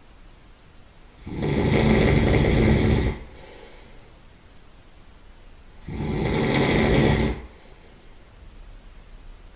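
A man's loud nasal snoring while he lies on his side: two long snores, the first about a second in and the second about six seconds in, with quiet breathing between them.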